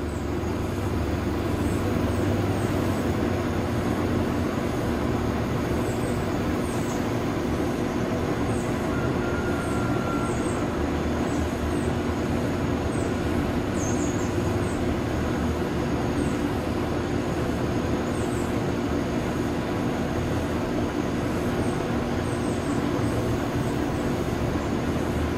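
A steady low mechanical hum, with short faint high-pitched chirps every second or two over it.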